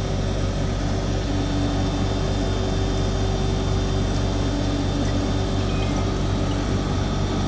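Laboratory suction pump running with a steady hum, drawing vacuum through a Büchner funnel during filtration.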